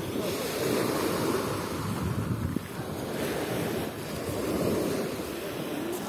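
Small waves of the Sea of Azov breaking and washing up a sandy beach, with wind gusting on the microphone.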